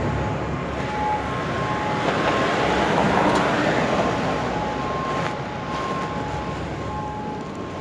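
Street traffic noise, swelling as a vehicle passes about two to four seconds in, with a faint two-note tone beeping on and off in the background.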